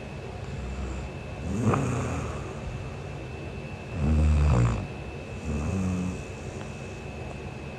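A young woman snoring in her sleep: three low, rattling snores, the loudest about four seconds in.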